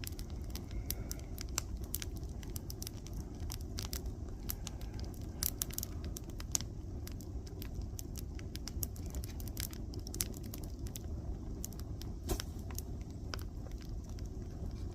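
Wood campfire crackling, with sharp pops at irregular moments over a steady low rumble.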